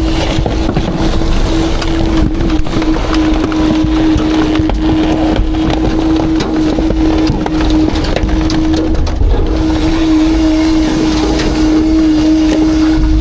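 Autocar/Heil Half/Pack garbage truck packing its load: the engine and hydraulics run hard with a steady whine that breaks off briefly about nine seconds in, over a low rumble. Trash crunches and crackles as the packer blade compacts it.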